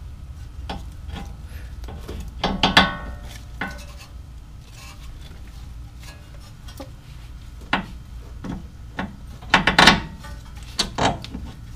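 Metal clinks and knocks of hand tools and steering parts as a tie rod end is fitted back into the steering knuckle of a car's front suspension: a scattering of sharp metallic taps, a few ringing briefly, with the loudest about two and a half seconds in and again near the end.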